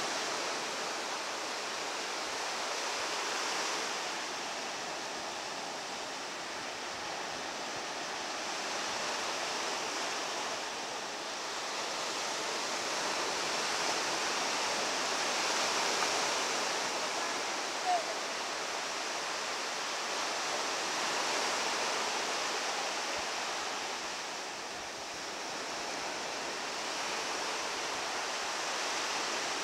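Sea waves washing on the shore: a steady rushing hiss that swells and eases every few seconds.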